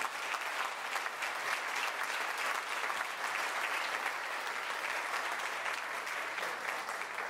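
A crowd applauding, many hands clapping steadily and easing off slightly near the end.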